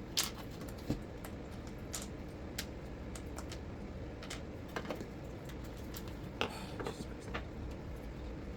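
Scattered light clicks and taps of small parts and tools being handled while working on a disassembled NutriBullet 1200 blender. The sharpest click comes just after the start and a short cluster comes near the end, over steady background noise.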